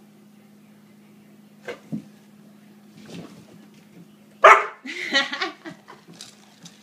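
A dog gives one loud, sharp bark about four and a half seconds in, followed by a quick run of shorter barks. There are two faint clicks earlier on.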